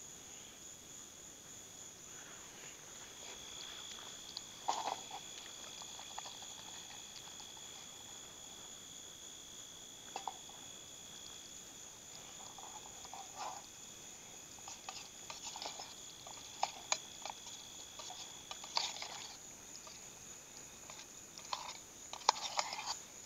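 Crickets chirping steadily, with scattered light clicks and clinks from a steel canteen cup being handled that grow more frequent near the end, as the cup is lifted off the stove.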